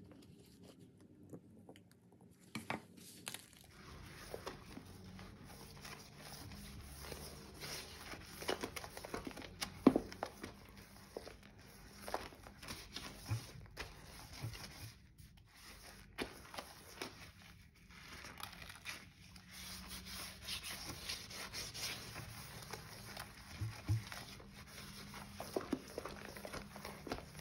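Sponge swirling and scrubbing thick wet Comet cleanser paste around a sink bowl: wet scrubbing dense with small irregular crackles and pops of the foam. It starts about three seconds in, after a quieter stretch.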